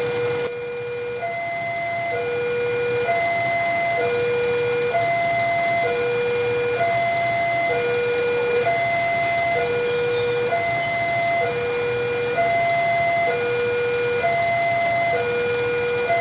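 Railway level-crossing warning alarm sounding a steady two-tone ding-dong, a low and a high tone alternating about once a second, the signal that a train is approaching.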